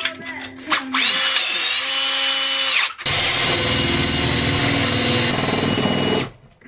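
Cordless drill fitted with a long bit, drilling into wooden wall panelling in two runs. The first starts about a second in, spins up and winds down after about two seconds. The second follows straight after and runs steadily for about three seconds before stopping.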